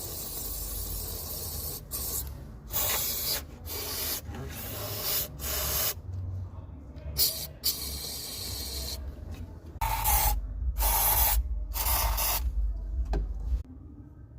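Engine with an injector fault running, a steady low rumble, overlaid by repeated loud hissing bursts of irregular length. The engine is said to be knocking from the injector issue.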